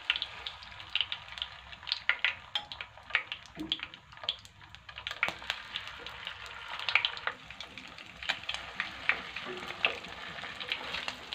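Egg-coated tilapia fillets sizzling in hot oil in a frying pan, with frequent sharp crackles and spatters as more pieces are laid in.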